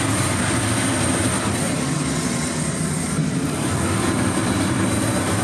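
Aircraft engines running, a steady, unbroken noise with no change in pitch.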